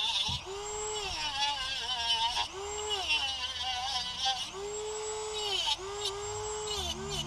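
Dremel rotary tool with an abrasive cut-off disc grinding into a seized steel manifold nut. Its whine swells and sags in pitch in repeated passes about a second long as the disc is pressed in and eased off, over a high grinding hiss.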